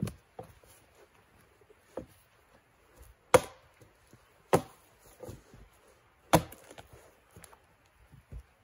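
Australian axe chopping into a felled log to take the bark off. Sharp chops come a second or two apart, with lighter knocks between them, and the loudest strike lands about a third of the way in.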